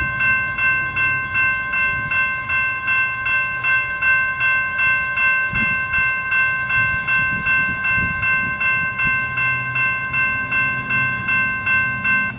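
Railroad crossing warning bell ringing in a steady clang of about two and a half strokes a second as the crossing gates come down, warning of an approaching train. It cuts off suddenly near the end, once the gate arms are down. A low rumble runs underneath.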